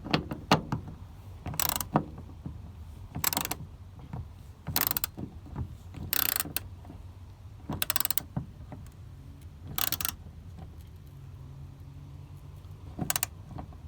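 Hand ratchet with a T50 Torx bit clicking in short bursts, about one every second and a half, as the door striker's screws are tightened. The bursts stop for a few seconds near the end, then come once more.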